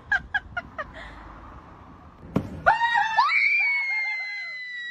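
A quick run of short, high-pitched blips, then a thump about two and a half seconds in, followed by a loud, high-pitched scream. The scream wavers at first, then holds one pitch and sinks slightly before cutting off near the end.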